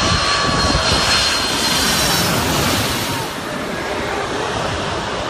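Boeing 747's four jet engines on low final approach, passing directly overhead: a loud rush of engine noise with a high whine, strongest about two to three seconds in and easing slightly after.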